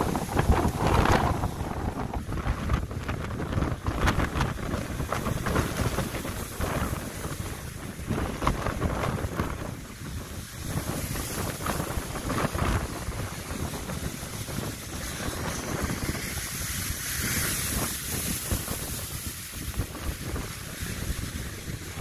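Strong gale buffeting the microphone in gusts, over the rush of heavy storm surf breaking against a sea wall.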